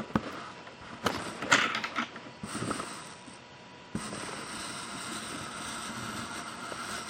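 Clicks and ratcheting rattles of equipment being handled and adjusted, most likely the camera mount being repositioned, then a steady hiss that starts suddenly about four seconds in.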